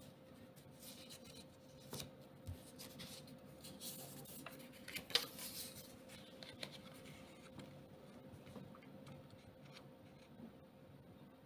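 Faint rustling, rubbing and light clicks of paper banknotes being handled as one note is put aside and the next is picked up, loudest about five seconds in. A faint steady hum runs underneath.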